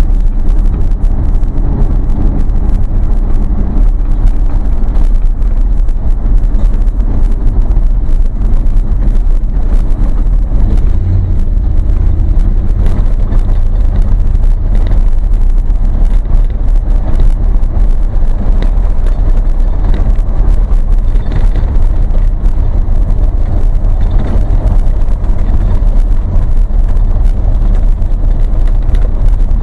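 A vehicle driving, heard from inside the cab: a steady low engine and road drone with constant crackle and rattle as the tyres run over a gravel road.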